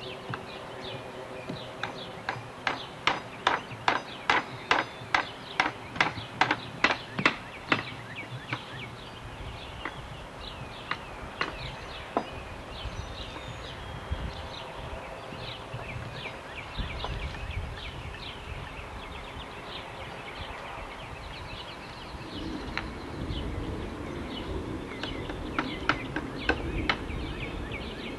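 Small hammers knocking on wooden blocks: a quick run of blows, about two to three a second for several seconds, then scattered taps. Birds chirp throughout.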